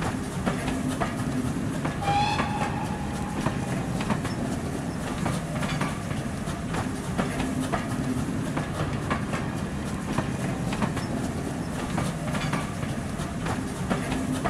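A full-size passenger train running past, with a steady rumble and a clickety-clack of wheels over rail joints. A brief high-pitched tone sounds about two seconds in.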